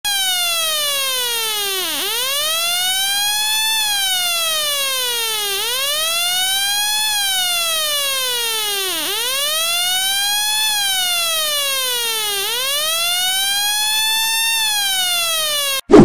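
Electronic siren from a homemade 12 V transistor circuit (BD139/TIP147) played through a loudspeaker: a buzzy tone wailing smoothly up and down in pitch, about one rise and fall every three and a half seconds. It cuts off abruptly just before the end.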